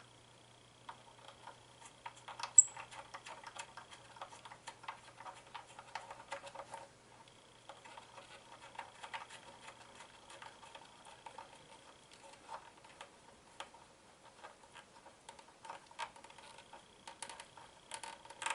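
Scattered light clicks and taps of wires being fitted into a speaker's terminals by hand, with one sharper click about two and a half seconds in. A faint steady hum sits underneath.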